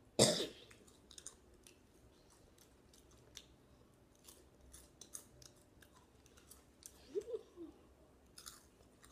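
A loud cough at the very start, then a boy chewing crunchy hot Cheetos, with many short crackly crunches through the rest. There is a brief vocal hum about seven seconds in.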